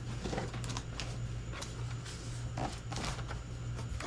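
A cardboard shipping box being opened by hand: scattered rustles and short clicks of cardboard and packing being handled, over a steady low hum.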